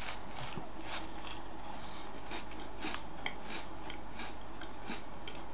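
A person chewing a digestive biscuit spread with blue cheese, close up: irregular small crunching and mouth clicks, several a second, over a steady low hum.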